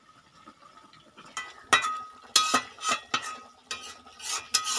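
A spatula scraping and knocking against a metal kadai of simmering fish curry as the fish pieces are turned, the pan ringing briefly with each stroke. Faint bubbling at first, then about a second and a half in the strokes start, around two a second.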